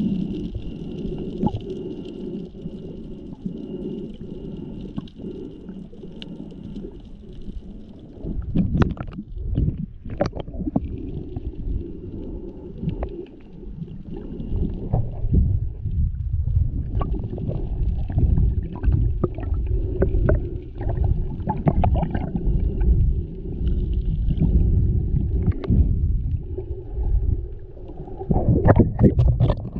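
Muffled water noise picked up by a GoPro while snorkeling: a low rumbling churn of water with a faint steady high whine in the first part. From about eight seconds in the rumble grows heavier, broken by many sharp clicks and splashing crackles from water moving around the camera.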